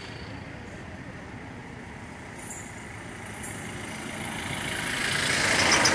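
Motor vehicle noise, low at first and growing steadily louder over the last two seconds.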